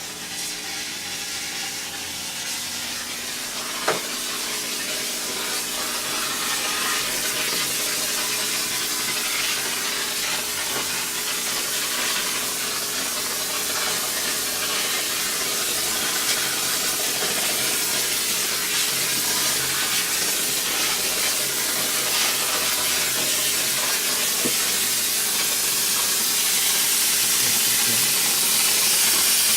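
Steady hissing spray from cleaning equipment, slowly growing louder, with a single sharp click about four seconds in.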